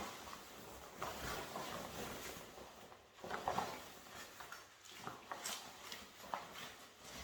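Soft rustling and brushing of fabric, with a few small clicks and scuffs, as a fleece-lined cagoule is pulled on over the top.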